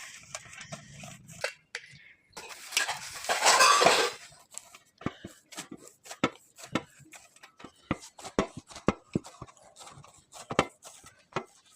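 Kitchen utensils clinking and tapping against dishes, with a louder noisy stretch of about a second and a half near three seconds in, then a run of sharp separate clicks and knocks.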